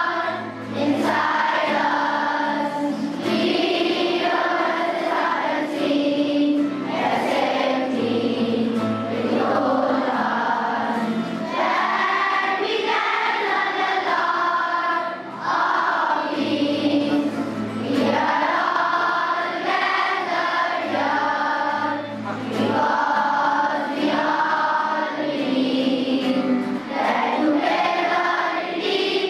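A large group of schoolchildren singing the school song together in chorus, in continuous sung phrases with short breaths between lines.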